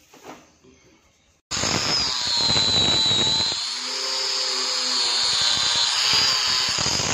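An angle grinder with a blue abrasive disc starts suddenly about a second and a half in and runs against a stainless steel sheet: a loud, high, wavering whine over a grinding hiss. Before it is nearly quiet.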